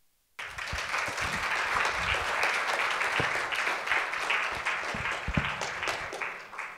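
An audience applauding, starting suddenly about half a second in and dying away near the end.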